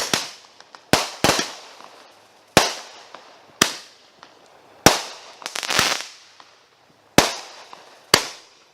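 Consumer aerial fireworks bursting: sharp bangs at irregular intervals of about a second, each followed by an echoing tail. One burst about two-thirds of the way through is longer and rougher than the rest.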